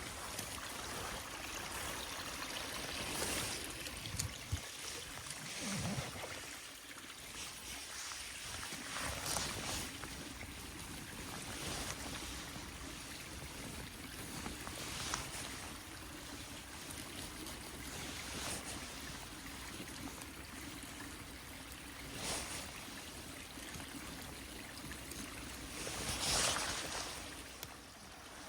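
Steady rushing of a forest waterfall and its stream, with a few brief louder swells.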